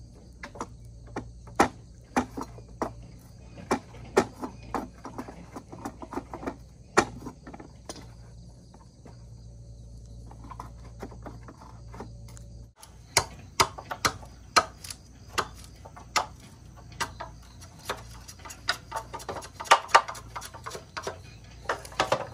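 Irregular sharp knocks and chops of a blade striking bamboo poles, one or two a second, easing off to a quieter stretch near the middle. After a sudden break they come faster, as a machete chops into bamboo.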